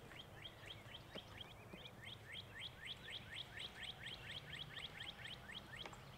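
A songbird singing: a long, even series of quick down-slurred whistled notes, about five a second, growing louder through the middle and fading near the end.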